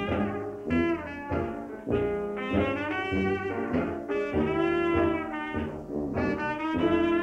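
Jazz-style band music led by brass, trumpet and trombone, playing a run of short, quickly changing notes.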